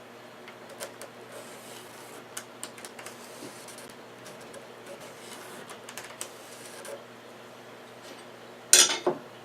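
Handling noises of a table saw's original metal insert plate being positioned on an MDF board: scattered light clicks and taps over a faint steady hum, then two sharp knocks close together near the end.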